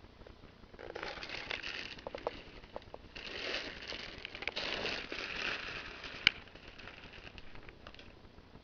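Dry hay rustling and crackling in two spells, with a single sharp click a little after six seconds in.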